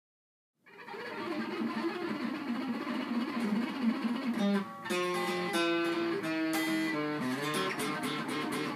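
Hollow-body electric guitar playing a blues intro, coming in about a second in with a busy strummed and picked figure. After a brief pause it moves to single held notes.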